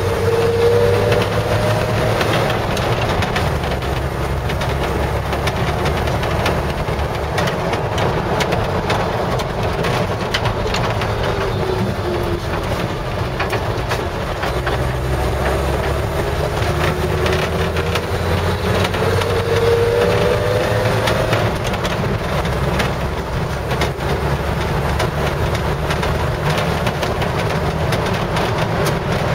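A 1955 Chevy 3100 pickup heard from inside the cab while driving: a steady low engine drone, with a whine that rises in pitch near the start and again about twenty seconds in, and frequent light clicks and rattles.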